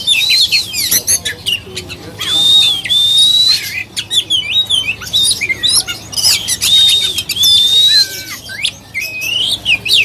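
Caged oriental magpie-robin (kacer) singing loudly: long clear whistles held near one high pitch and slurred up and down at the ends, broken by quick phrases of short rising and falling notes.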